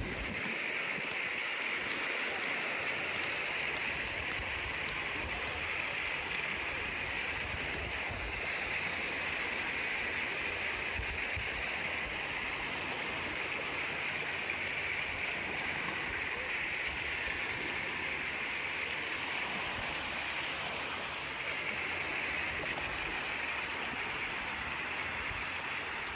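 Steady, even rushing noise of outdoor beach ambience, with no distinct events.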